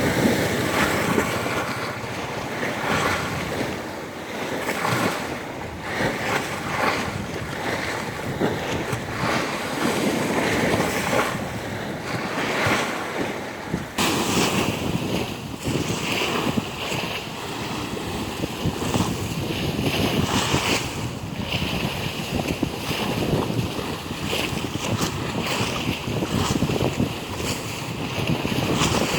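Strong sea surf breaking and washing, with wind buffeting the microphone. The sound shifts abruptly about halfway through.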